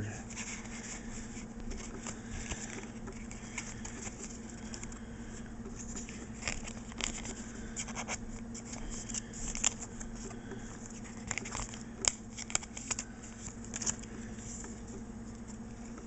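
Pokémon trading cards being shuffled and a clear plastic wrapper being handled, making scattered crinkles, rustles and light clicks. These are densest in the middle stretch.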